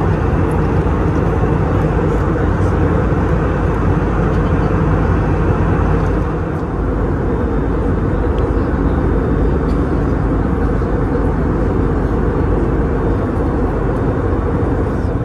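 Airbus A319 cabin noise in flight, heard from a window seat over the wing: a steady, loud jet-engine drone and rush of airflow, heaviest in the low end, easing slightly for a moment about six seconds in.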